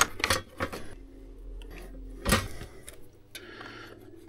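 Hands handling tools and a plastic electrical wall box: a few light clicks and knocks, the loudest about two seconds in, and a short rustle of cable being worked into the box near the end.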